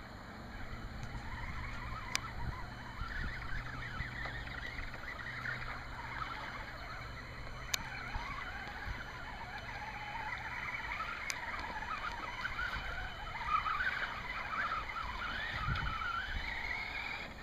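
Traxxas Summit RC truck's electric motor whining as it drives through shallow creek water, its pitch wavering up and down with the throttle. A few sharp clicks sound along the way.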